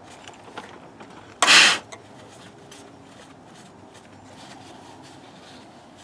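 Handling and rubbing noises from a shop towel wiping down a car battery, with one loud, short hissing rasp about a second and a half in.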